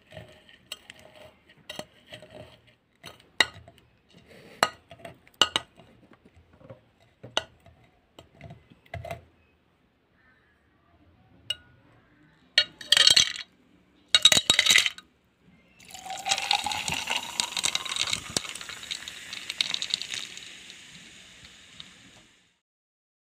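A metal muddler knocking as it crushes lime wedges and mint leaves in a glass pitcher. About halfway through, two loud clattering spills as ice is tipped in, then a long fizzing pour of soda that rises in pitch as it starts to fill the pitcher.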